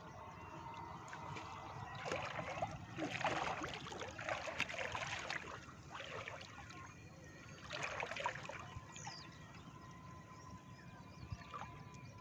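Water splashing and dripping in short irregular bursts, from a gill net and its catch being worked by hand in shallow water. The main bursts come about two seconds in and again around eight seconds.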